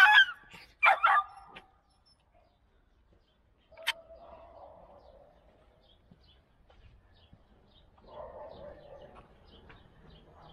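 A domestic cat meowing twice in quick succession near the start. It is quieter afterwards, with a single click about four seconds in.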